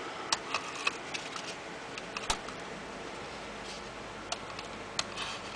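Scattered light clicks and taps of hands working in an open laptop chassis while fitting strips of double-sided tape, with a couple of brief rustles; the sharpest click comes about two seconds in.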